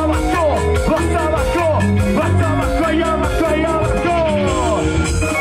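Loud band music with a steady beat and a heavy bass line, and melodic lines bending up and down over it.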